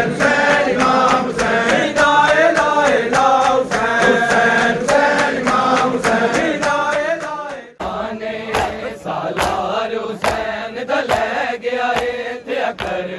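Men's voices chanting a noha over evenly repeated sharp chest-beating strikes (matam). About eight seconds in the sound cuts to a large crowd of mourners chanting together, with rougher, less even strikes of hands on chests.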